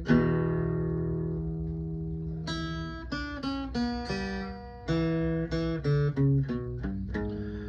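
Acoustic guitar playing an instrumental fill between sung lines: a chord struck and left to ring out for about two seconds, then a run of single picked notes.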